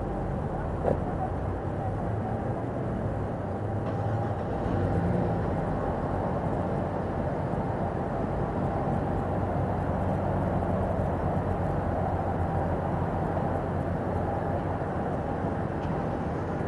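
A steady, low vehicle rumble with a faint steady whine above it.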